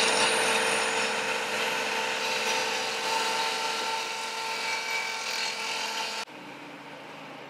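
Table saw running, its circular blade cutting into a wooden board, with a steady whine over the noise of the cut. It cuts off suddenly about six seconds in, leaving a quieter workshop background.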